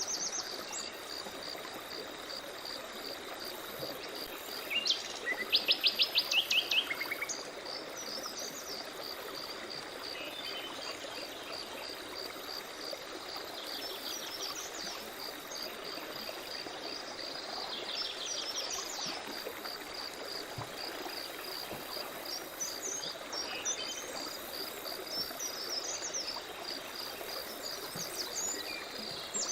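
Forest ambience: songbirds calling and singing in scattered phrases, the loudest a quick rapid trill about five seconds in, over an insect's steady high pulsing chirp and a soft even rush of background noise.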